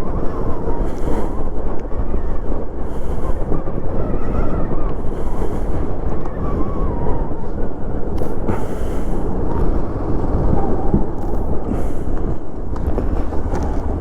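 Motorcycle engine running while riding, under heavy wind buffeting on the microphone.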